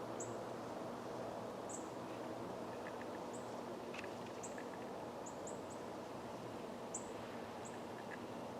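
Quiet outdoor ambience with a small bird giving short, high, thin chirps, about a dozen scattered irregularly through it.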